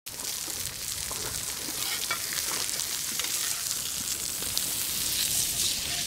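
Onglet (hanger) steak sizzling on a hot ridged grill pan: a steady high hiss of frying with small pops and crackles scattered through it.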